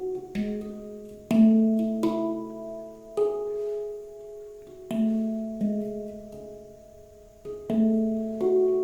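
Handpan played slowly by hand: single struck notes and pairs ring out with long, overlapping bell-like tones, a new stroke every second or so.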